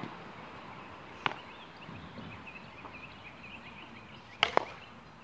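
Sharp knocks of plastic wiffle ball play: a single crack about a second in, then a louder pair of cracks in quick succession near the end.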